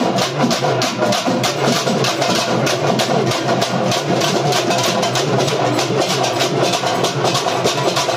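Urumi melam drum ensemble playing: urumi hourglass drums and stick-beaten drums in a fast, steady beat over a continuous engine-like drone from the urumi.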